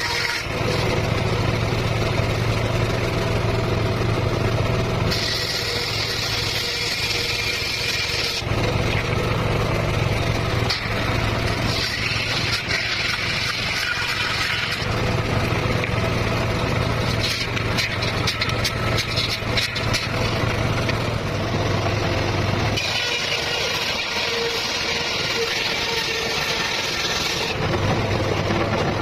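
Circular saw running with a steady low hum while cutting petung bamboo, with three stretches of harsher, higher cutting noise as the blade goes through the culm: about five, twelve and twenty-three seconds in, each lasting a few seconds.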